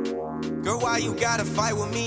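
Electronic background music: held chords, with a wavering melodic line coming in about half a second in.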